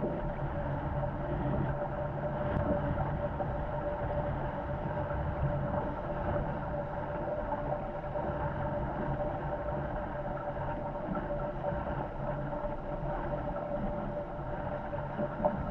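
Wind and water rushing past a Corsair F-24 trimaran sailing fast in strong wind, a steady noise with a thin, steady hum running through it.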